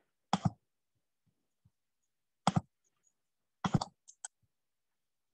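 Computer mouse clicks: a sharp click about half a second in, another about two and a half seconds in, then a quick cluster of clicks near the four-second mark.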